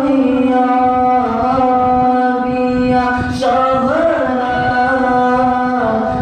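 Nasheed singing: a voice holding long, steady drawn-out notes, broken briefly about three and a half seconds in before the melody rises and then settles again.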